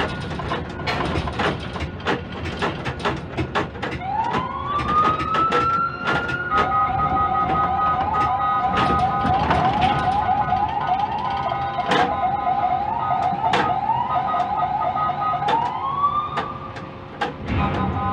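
Quay crane machinery whining as it works: a tone rises in pitch as a move speeds up, holds at a steady, slightly wavering pitch, then rises again near the end, with frequent clicks and knocks from the crane.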